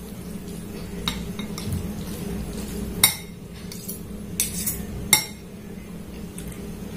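Metal fork and spoon scraping and clinking against a glass bowl as noodles are stirred and mixed, with sharp clinks about a second in, near three seconds, and a few more between four and five seconds.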